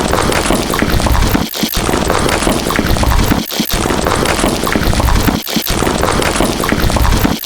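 A loud, dense, noisy sound effect that repeats about every two seconds, each pass broken by a brief gap.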